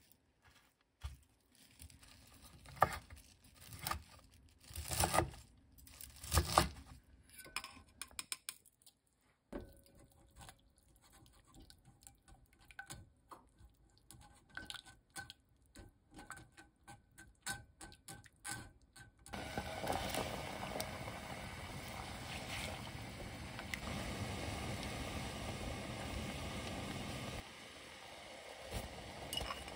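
A chef's knife chops bunches of shepherd's purse on a wooden cutting board in irregular strikes for about the first ten seconds. A silicone spatula then scrapes and presses soybean paste through a metal mesh strainer, with soft clinks. From about two-thirds of the way in, broth boils at a rolling boil in a stainless steel pot with a steady bubbling hiss.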